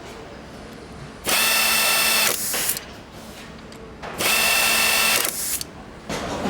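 A power tool on an engine assembly line runs in two bursts of about a second each, with a steady high whine, over a quieter background hum.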